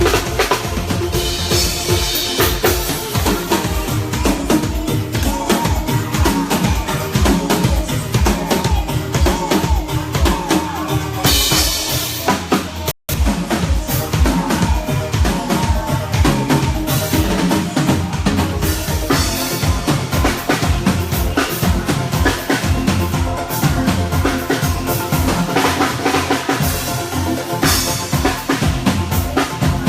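Live band playing during a sound check, the drum kit's bass drum and snare to the fore over held chords and bass. The sound drops out for an instant about thirteen seconds in.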